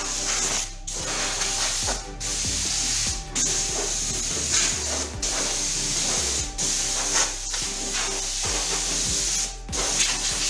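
Power saw cutting a thermoformed solid-surface (Corian) strip: a steady rasping hiss, broken about six times by brief gaps.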